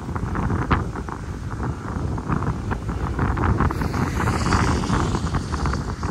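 Strong wind buffeting the microphone: a heavy, uneven rumble with gusty crackling.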